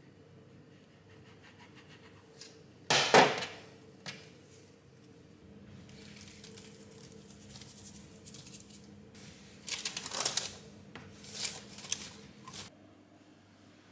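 Kitchen utensils and cookware being handled: a loud clatter about three seconds in, then several shorter scraping and clinking sounds near the end. A faint steady hum runs under them and stops shortly before the end.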